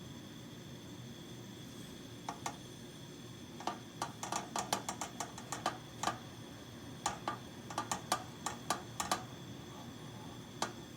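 Steady hiss with a run of light, irregular metallic taps and clicks starting about two seconds in and bunched in the middle: aluminum brazing rod tapping and rubbing against the heated aluminum flange as the filler is laid down.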